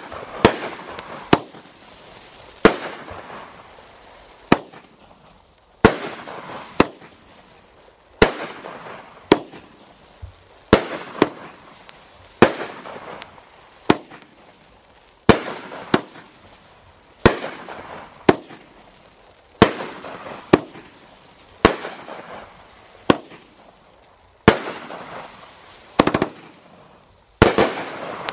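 A 500-gram consumer fireworks cake firing shot after shot: sharp bangs at irregular intervals of about a second, each trailing off in a fading crackle. Near the end several shots go off in quick succession.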